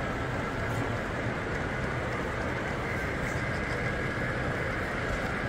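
Steady background din of a crowded exhibition hall, an even wash of noise with no single sound standing out.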